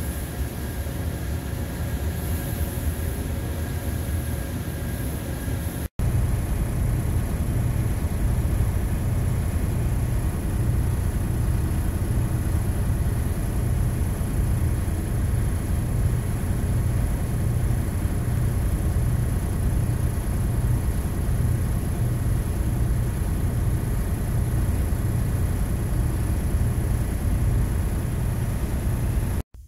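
Steady rush of air in a paint spray booth: the booth's ventilation fans running, with the hiss of a compressed-air spray gun spraying paint onto a steel chassis frame. The sound cuts out for an instant about six seconds in, then carries on the same.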